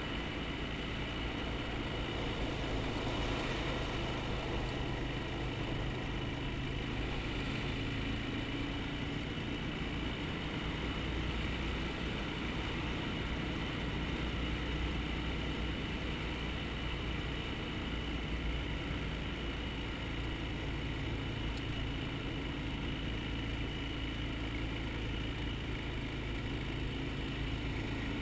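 Quad (ATV) engine running steadily at an even cruising speed, with no change in pitch or level.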